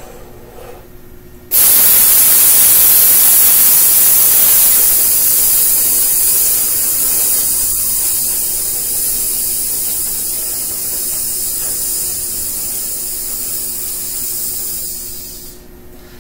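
A man's long hissed exhale in a breathing exercise: a second and a half of quiet on the 4-count in-breath, then one steady hiss of about fourteen seconds that slowly fades and stops just before speech resumes. This is a controlled slow out-breath over a count of 16, a singing warm-up.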